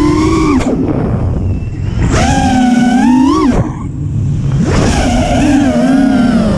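FPV racing quadcopter's brushless motors (HGLRC Flame 2306 2450kv) whining, their pitch rising and falling with throttle. The whine cuts out twice, under a second in and again after about three and a half seconds, then comes back each time as the throttle is punched again.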